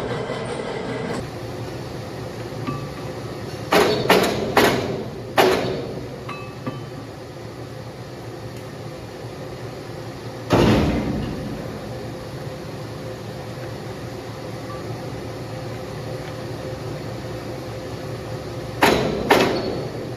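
Sharp metal clanks that ring briefly, over a steady machine hum: three or four quick strikes about four to five seconds in, a single one near the middle, and two close together near the end.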